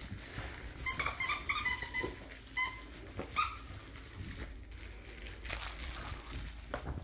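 A dog's plush squeaky toy squeaking as a dachshund bites it: a quick run of short, high squeaks a second or so in, then two more single squeaks.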